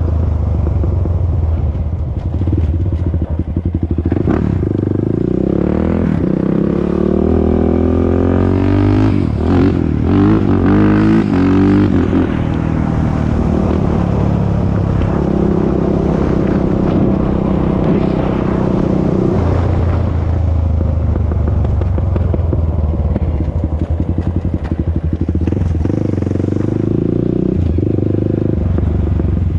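Honda TRX400EX ATV's single-cylinder four-stroke engine with stock exhaust, running under way. It revs up in several rising surges in the first half, then runs at a steadier pitch.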